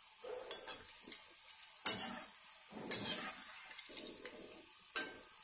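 Gulab jamun dough balls deep-frying in hot oil with a faint, steady sizzle, while a steel spoon stirring the oil clinks sharply against the metal kadai a few times.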